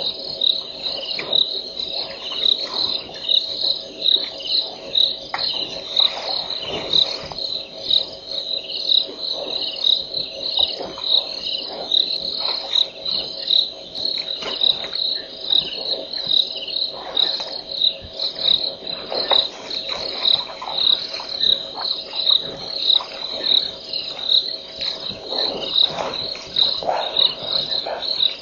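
Crickets chirping at night: a high, steady, rhythmic chirp repeating evenly throughout.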